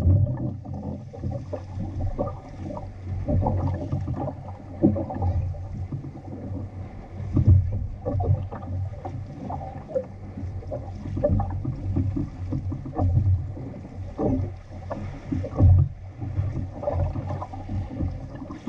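Water sloshing and slapping irregularly against the hull of an outrigger sailing canoe under way, over a steady low rumble of wind on the microphone.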